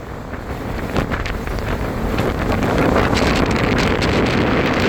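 Strong wind buffeting the microphone, a rumbling rush that grows louder about two seconds in, with a few small knocks.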